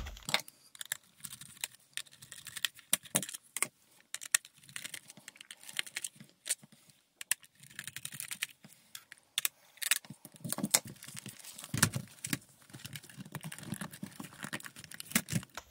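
Scattered sharp plastic clicks and taps, the loudest right at the start, as hands work on a ThinkPad T430 laptop's case, memory bay and keyboard.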